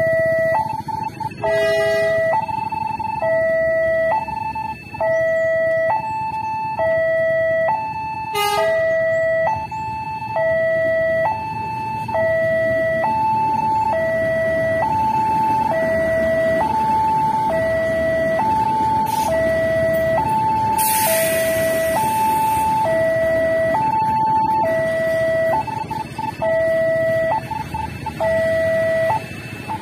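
Railway level-crossing warning alarm sounding an electronic two-tone signal, a low and a high tone of about half a second each alternating evenly, and stopping near the end. A passenger train passes with a steady rumble underneath. There are two short beeps in the first third and a brief hiss about two-thirds of the way through.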